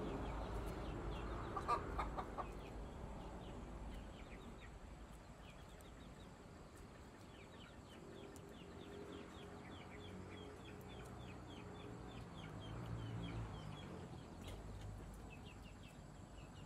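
Chickens clucking, with a few loud clucks about two seconds in, over a steady scatter of small high bird chirps.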